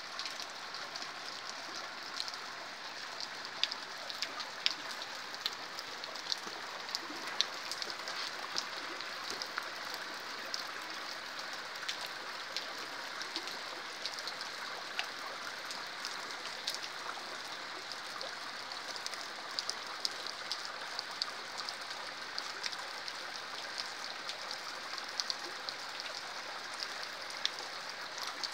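Steady rain: an even hiss with sharp, irregular ticks of single drops striking close by.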